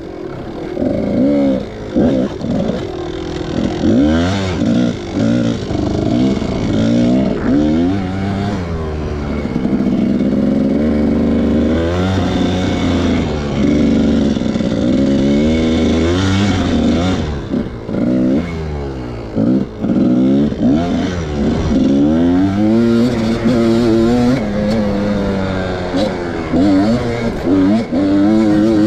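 Kawasaki dirt bike engine under way, revving up and easing off again and again, its pitch climbing and dropping with each burst of throttle and gear change.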